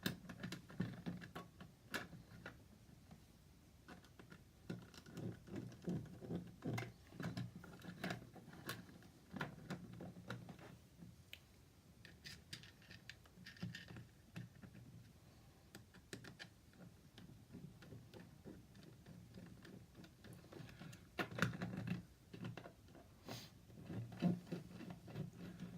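Faint, irregular clicks and scrapes of a hand screwdriver driving the fixing screws that hold a dimmer switch in its wall back box, with a busier run of clicks about three quarters of the way through.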